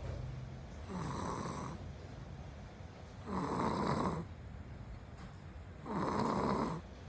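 A young child snoring in sleep: three snores about two and a half seconds apart, each lasting just under a second.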